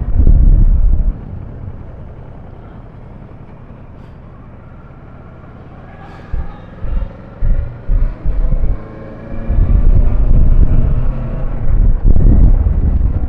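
Wind buffeting the microphone and road noise from a moving motorcycle. The rumble drops away about a second in as the bike slows, comes back in uneven gusts from about six seconds, and is loud and steady again from about ten seconds as it picks up speed.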